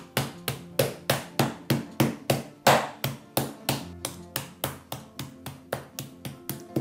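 Wooden rolling pin beating an opened-out raw chicken breast on a wooden chopping board to flatten it, a steady run of blows about three a second.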